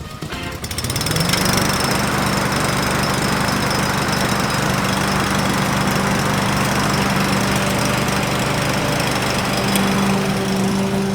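Petrol lawn mower engine coming up to speed about a second in, then running steadily at full throttle.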